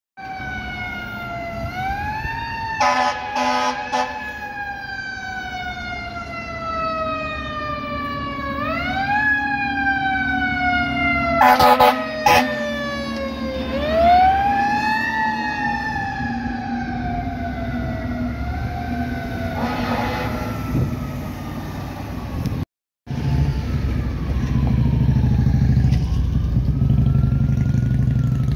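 Fire engine siren winding up and then slowly coasting down in pitch, three times over, cut by air horn blasts: a few about three seconds in, two around twelve seconds, and one near twenty seconds. Near the end a fainter siren wails down and up over the rumble of traffic.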